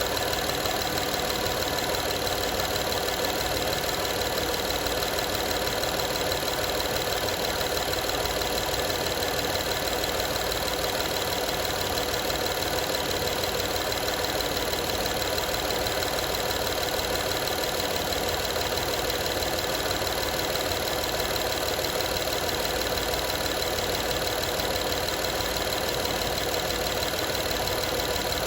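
A 2012 Honda Odyssey's 3.5-litre V6 running steadily with a rattle of unknown cause, the noise the owner wants diagnosed.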